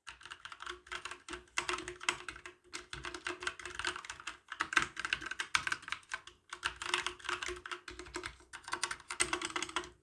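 Typing on an SPC Gear GK630K mechanical keyboard with tactile Kailh Brown switches: a fast, steady run of key clicks broken by a few short pauses.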